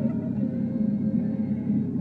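Steady low rumble of a moving car heard from inside the cabin, with a faint held tone above it.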